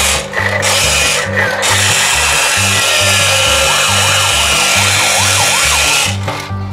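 Battery-powered toy police car's sound effect playing from its small built-in speaker: a loud, harsh noise that breaks off twice briefly, then holds steady with faint rising-and-falling tones in it, and cuts off about six seconds in. Background music with a steady bass line plays under it.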